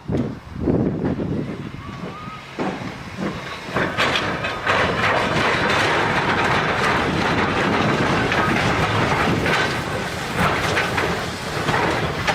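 A train running on rails, its wheels clattering over the track, louder from about four seconds in.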